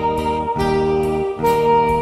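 A hymn played on a Ringway RS400H electronic organ using its soprano saxophone voice: a held melody over sustained chords, changing note twice.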